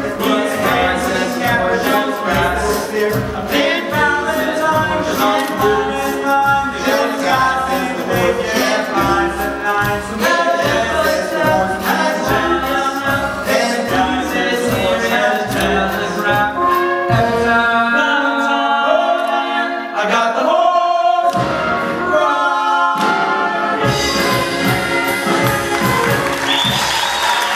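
Three male voices singing a show tune in overlapping round-like lines over instrumental accompaniment with a steady beat. The song closes on held notes about three-quarters of the way through, and audience applause begins near the end.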